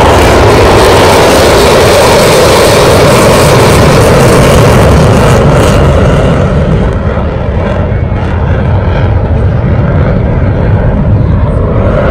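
Fighter jet flying past overhead: a loud, steady jet-engine noise that eases a little about seven seconds in.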